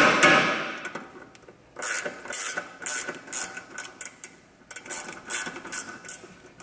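Hand ratchet wrench clicking in short runs, a few clicks a second, as a bolt on the car's front suspension is turned, after a louder sound fades out in the first second.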